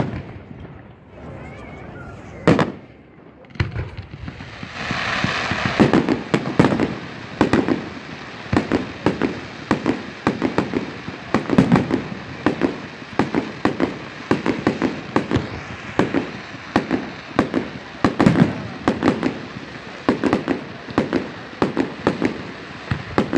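Fireworks display: a few single bangs, then a rush of hiss about four seconds in, followed by a rapid, unbroken run of sharp bangs, several a second, as shells and ground fountains go off together.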